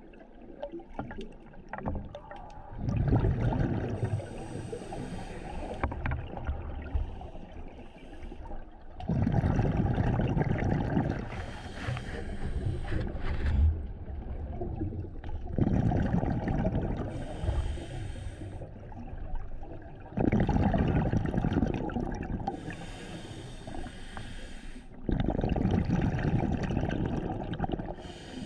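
Scuba diver breathing through a regulator underwater: about five breaths, one every five to six seconds, each a rush of exhaled bubbles together with the hiss of air drawn through the regulator.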